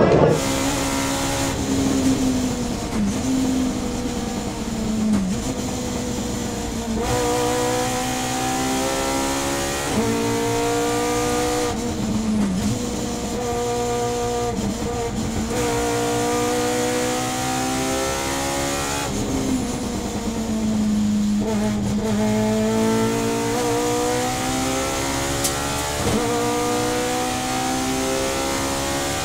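Subaru BRZ race car's short-stroke 2-litre flat-four boxer engine, with individual throttle bodies and a 4-1 exhaust, heard from inside the cabin under hard acceleration. Its pitch climbs and drops sharply several times as the sequential gearbox shifts, with one stretch of lower revs off the throttle.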